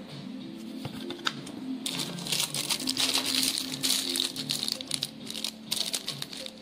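Clear plastic wrapping crinkling as a hand grips and turns an electric pet clipper still sealed in its bag. The crinkling starts about two seconds in and stops shortly before the end.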